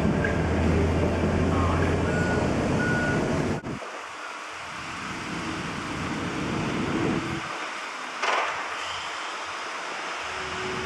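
Street traffic: a vehicle engine rumbling close by for the first few seconds, then an abrupt drop to quieter outdoor noise with some wind on the microphone and a brief sharper sound near the end.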